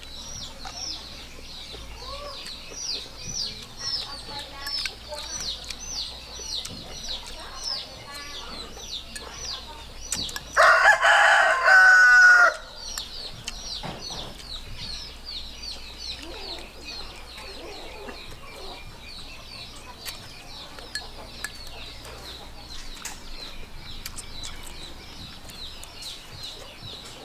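A rooster crows once, loud and about two seconds long, a little under halfway through. Behind it is a steady run of short, high chirps, about three a second.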